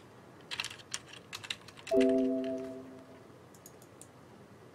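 A quick run of computer keyboard and mouse clicks, then a computer system alert chime: several notes sounding together that fade out over about a second and a half.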